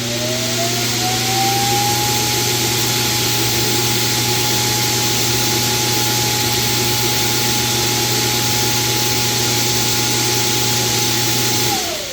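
Roomba auto-empty dock's suction motor emptying the robot's dustbin: it spins up with a rising whine, runs loud and steady with a rush of air, then winds down with a falling whine near the end.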